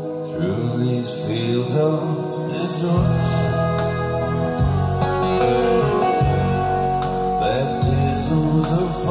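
A song with a singing voice played back through two bookshelf speakers driven by a Soundstream Reference 405 amplifier and a Kenwood 7001 head unit. A deep bass line comes in about three seconds in.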